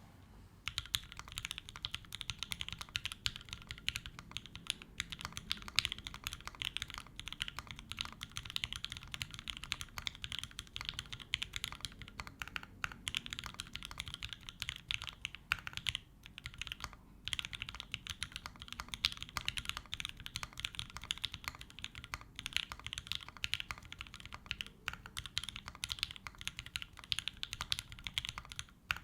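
Continuous fast typing on a custom 65% mechanical keyboard: lubed FFF switches on an aluminium plate, gasket-mounted with no case foam, with GMK doubleshot ABS keycaps, a steady run of key clacks with a couple of brief pauses.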